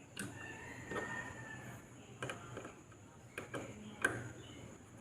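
Scattered small clicks and taps of a graphics card's cooler, heatsink and screws being handled and fitted back on, with a faint high scrape in the first second and a half.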